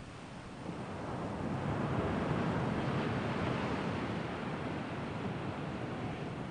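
Wind gusting across the microphone: a rushing noise that swells about a second in and stays up.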